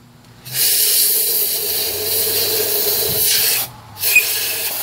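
Compressed-air blow gun hissing in blasts down the water jackets of a 1970 Oldsmobile 350 V8 block, blowing loose rust and scale out of the coolant passages. The blast starts about half a second in, cuts off briefly just before the four-second mark, then starts again.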